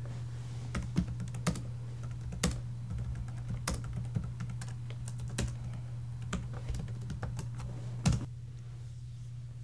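Typing on a computer keyboard: a run of irregular key clicks, with one louder click just after eight seconds in, over a steady low hum.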